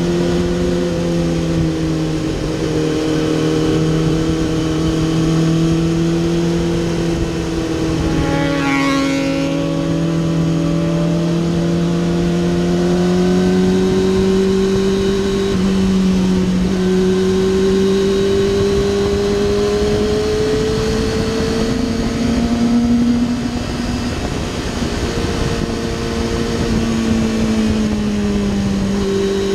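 2007 Kawasaki ZX-6R's 600 cc inline-four running hard through an Akrapovic Evolution exhaust, heard on board at speed with wind rush; the engine note holds high and drifts slowly up and down through the corners. A brief high whine rises and falls about nine seconds in.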